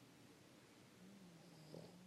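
Pug snoring faintly: one drawn-out, steady-pitched snore beginning about halfway through.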